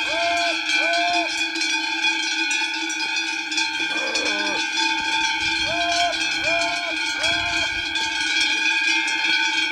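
Many cowbells on a walking herd of cattle ringing together in a steady jangle. Over them comes a herdsman's short, even calls, three in a row near the start and three again about six seconds in, with a brief lower call about four seconds in.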